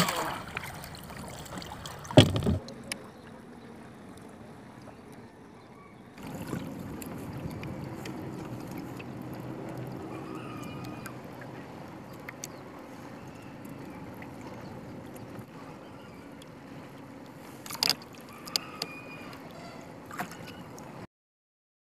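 A paddle stroke splashing in seawater about two seconds in, then water lapping against the hull of a small outrigger canoe, with a few light knocks near the end.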